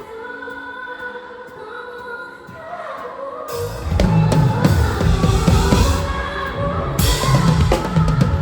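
Pop band playing live. A quiet passage of held keyboard and vocal notes gives way, about three and a half seconds in, to the full drum kit and bass coming in hard, with cymbals crashing in near the end.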